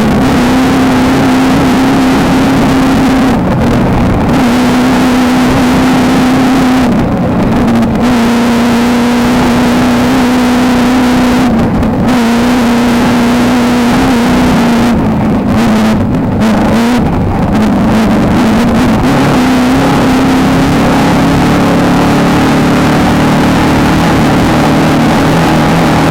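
Engine of a VW Beetle-based desert off-road race car running hard at high revs, heard on board, with the revs dipping briefly about half a dozen times as the throttle is lifted or a gear is changed.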